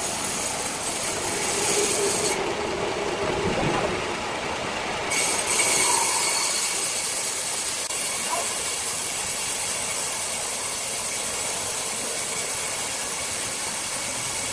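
Large sawmill circular saw running and cutting through a rosewood block: a steady, loud machine noise with a high ringing tone, swelling about two seconds in and again around five seconds in.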